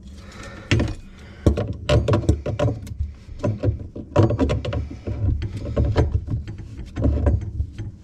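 Irregular clicks, knocks and rubbing of an adjustable wrench working the nuts on a sink drain trap, with heavier thumps and low rumbling from handling the pipes.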